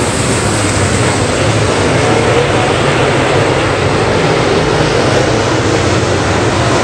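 A pack of topless dirt late model race cars circling the track together, their V8 engines making a loud, steady combined engine noise.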